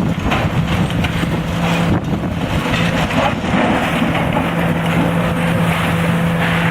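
Diesel engine of a demolition excavator running steadily with a low hum, under heavy wind buffeting the microphone.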